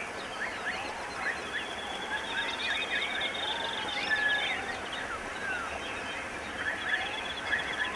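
A dense, overlapping chorus of bird-like chirps, squeaks and short rising and falling whistles, with a buzzing trill high above them and slow wavering tones lower down.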